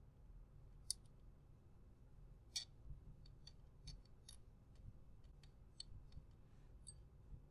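Near silence broken by scattered faint, sharp clicks of small RC-car parts being handled and fitted as a shock is mounted, the loudest about two and a half seconds in and a quick run of small ticks after it.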